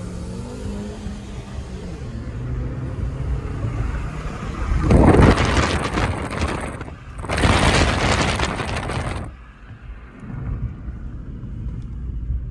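Hyundai i20's 1.2-litre petrol engine accelerating hard under full throttle, heard from inside the cabin. A loud rushing noise swells about five seconds in, breaks off briefly, returns for about two seconds, and the sound eases off near the end.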